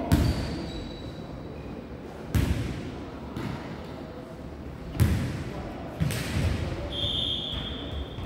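Jokgu ball being kicked and bouncing on a hardwood gym floor: four sharp thuds about two to three seconds apart, echoing in the large hall. A short high squeak comes near the end.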